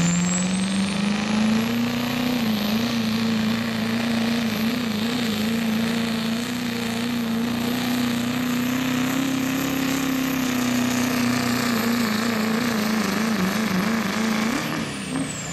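Pro street diesel pickup truck's engine running hard under load while pulling a weight-transfer sled, with a high turbocharger whistle that climbs over the first couple of seconds, holds, and falls away near the end as the pull finishes.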